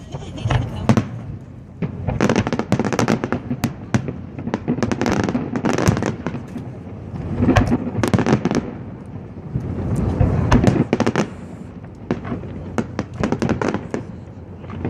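Aerial fireworks exploding in a fast, continuous run of bangs and crackles, many strokes in clusters with echoing tails.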